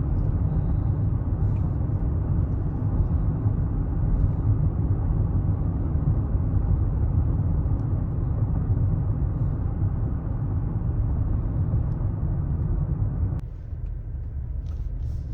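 Steady low rumble of a vehicle driving, engine and tyre noise heard from inside the cabin. It drops to a quieter level abruptly near the end.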